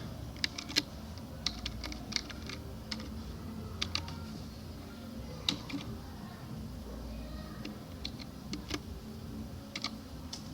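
Computer keyboard being typed on: irregular, short key clicks coming in small clusters with gaps between them.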